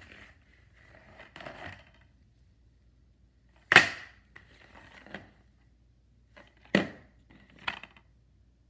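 Plastic DVD cases handled on a tile floor: soft rubbing and shuffling of the cases, with two sharp clacks as a case is set down on the tiles, the louder about four seconds in and another near seven seconds, followed by a lighter click.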